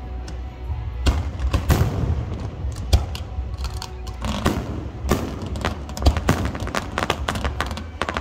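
Fireworks going off: a string of sharp bangs and booms, coming thick and fast in the second half, with music playing underneath.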